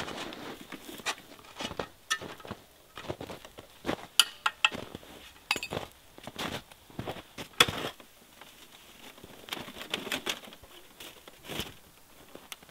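Footsteps crunching in snow and camp gear being handled while a tent is taken down: irregular crunches and knocks, several a second, with brief pauses.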